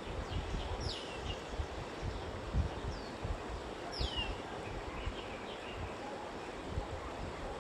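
Outdoor ambience: wind buffeting the microphone in low gusts over a steady background hiss, while a bird gives several short, downward-sweeping calls and a few softer chirps.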